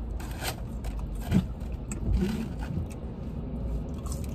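A person eating inside a car: short, irregular chewing and food-handling noises over a steady low rumble in the cabin.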